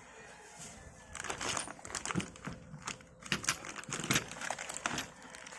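Plastic packaging crinkling and small metal accessories clicking together as an impact wrench kit's sockets and drill bits are handled, a string of short sharp clicks and rustles starting about a second in.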